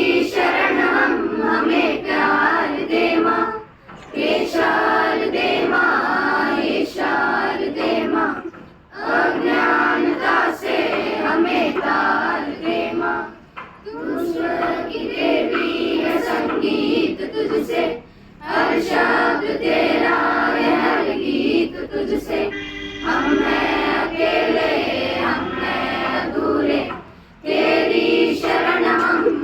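A school choir singing a Hindi prayer song together, in sung phrases with short pauses for breath about every four to five seconds.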